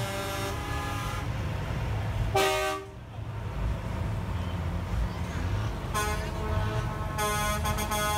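Semi-truck air horns blowing over the low rumble of slow-moving diesel rigs: a blast ending about a second in, a short blast at about two and a half seconds, and a longer blast starting about six seconds in.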